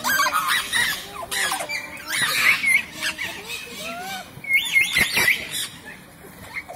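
Captive nanday parakeets and other conures squawking: many short, harsh, pitch-bending calls overlap, some of them loud, and the calls thin out near the end.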